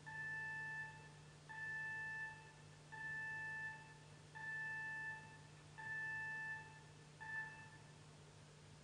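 Flute playing one high note over and over: six even tones about a second and a half apart, the last one cut short. A faint steady hum lies underneath.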